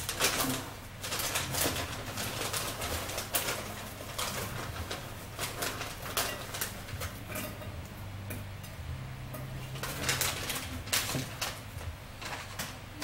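Crinkly plastic bag of Harvest Snaps green pea crisps rustling and crackling as it is handled and crisps are taken out, in short irregular crackles over a steady low hum.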